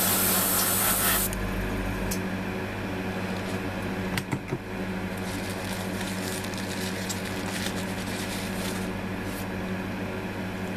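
An airbrush spraying paint in one short hissing burst of about a second right at the start. After it comes a steady low hum, a couple of sharp knocks about four seconds in, and faint rustling of handling.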